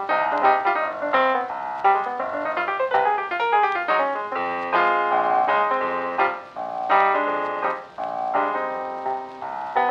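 Background piano music: a piano playing a flowing melody of quick notes, with a descending run a few seconds in.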